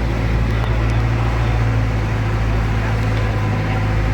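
Boat engine running steadily under way: a constant low drone with a rushing noise over it.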